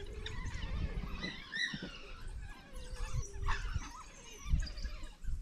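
African wild dogs twittering: high-pitched chirps and squeaks in quick, overlapping runs, with a held lower call a little past the middle. Occasional low rumbles sit underneath.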